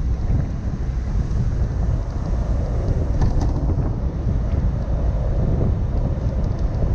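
A car driving steadily along a paved road: a constant low rumble of engine and tyres, with wind buffeting the microphone.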